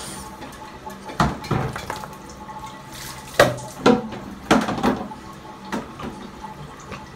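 Water splashing and dripping in a bathroom basin around a wet French bulldog being bathed. There are several sharp, loud splashes or knocks, one pair about a second in and a cluster between three and five seconds in.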